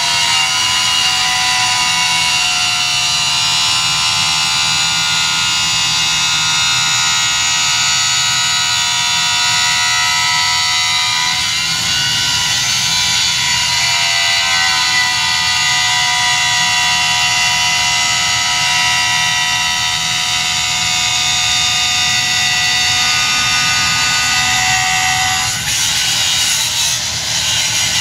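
9-inch angle grinder running continuously, its disc grinding steel to prepare it for welding. It makes a steady high whine over a gritty grinding noise, and the pitch dips briefly about halfway through.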